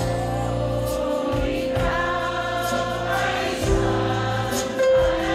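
Pop music with several voices singing together over a band, with held bass notes and sustained chords.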